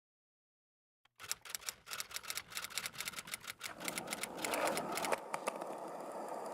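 Rapid, irregular clicking and tapping, several clicks a second, starting about a second in, with a hiss that builds up behind it toward the end.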